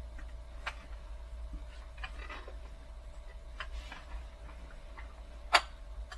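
A few sharp clicks and knocks from a cold chainsaw being handled between starting attempts, the loudest about five and a half seconds in, over a faint steady hum and a low rumble.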